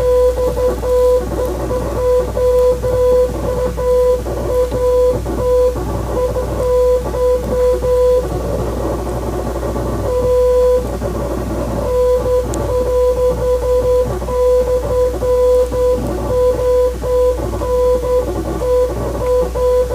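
Morse code beeps: one steady mid-pitched tone keyed on and off in short and long elements, with a pause of about two seconds near the middle, over a busy guitar music bed.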